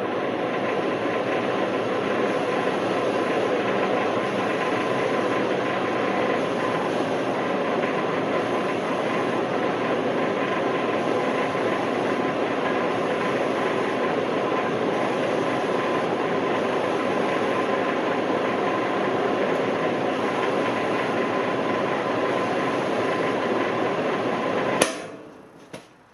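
Freshly reassembled Lincoln Idealarc 250 transformer welder powered up and running, its cooling fan and transformer giving a steady loud hum and rush. Near the end it is switched off with a sharp click and the sound dies away.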